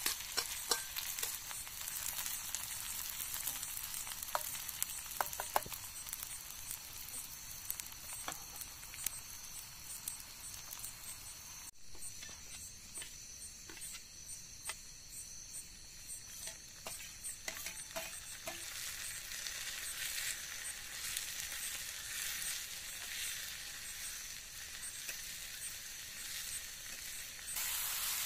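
Hot oil sizzling as chopped onion and then mixed vegetables fry in a small pot on a portable gas stove, with clinks of a metal spoon stirring against the pot.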